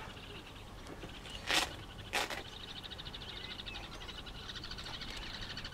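A fast, high-pitched rhythmic chirring of small animals, stronger from about halfway through. Two short rushing noises come about a second and a half and two seconds in.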